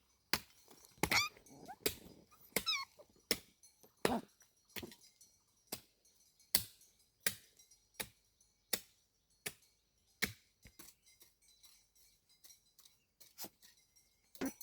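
Steady chopping: a blade striking a wooden surface about once every 0.7 seconds.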